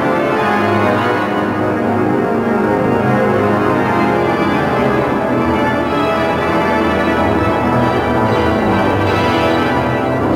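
Music of slow, held organ chords.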